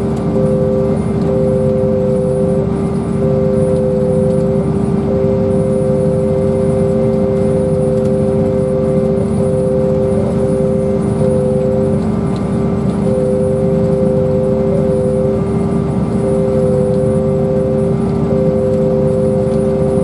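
Steady running drone of a farm machine heard from inside its cab, with a constant whine and a slightly higher whine that keeps dropping out and coming back.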